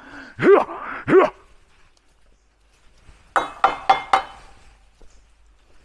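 Two loud bark-like animal calls about 0.7 s apart, each rising then falling in pitch. About two seconds later comes a quick run of four sharp, ringing knocks.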